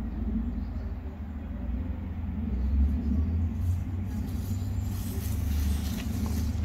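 Steady low rumble, with a light rustle of dry leaves a little past halfway as the dog and walker step off the path into the leaf litter.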